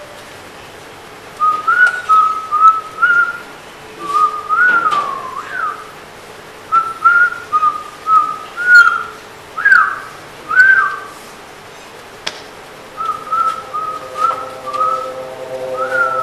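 A person whistling a tune in short phrases of clear notes with small slides up and down. A steady held tone joins in near the end.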